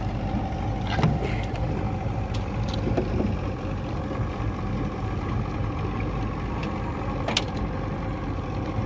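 Boat engine running steadily, with a few sharp knocks about a second in and near the end.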